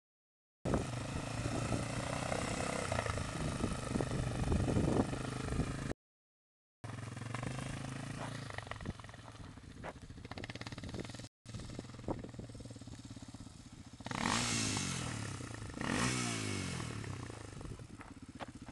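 Sport ATV (four-wheeler) engine running as it is ridden on dirt, broken by short gaps of dead silence where the recording cuts. Near the end it revs up loudly twice, about two seconds apart, the pitch falling away after each.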